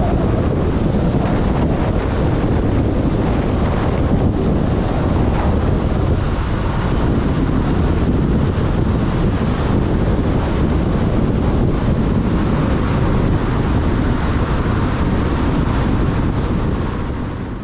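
Loud, steady wind buffeting the microphone, as on a moving vehicle on the road; it cuts off abruptly at the end.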